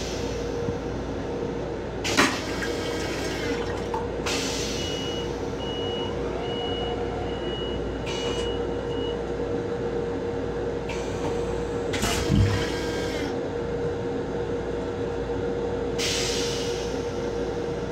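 Metro-North M7 railcar toilet flushing: rushes of hissing water and air, with a sharp knock about two seconds in and another about twelve seconds in, over the steady hum of the train car. A run of five short high beeps sounds in the middle.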